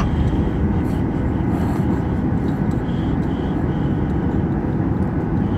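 Cabin noise inside a Boeing 737-800 rolling on the ground: a steady low rumble from its CFM56 jet engines and wheels.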